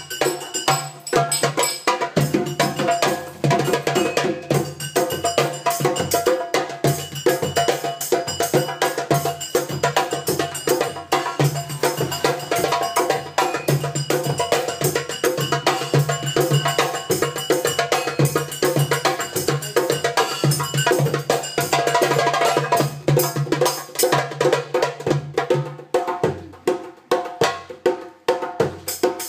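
Djembe hand drums played in a fast, steady rhythm, dense with strikes. A low steady tone beneath the drumming stops near the end.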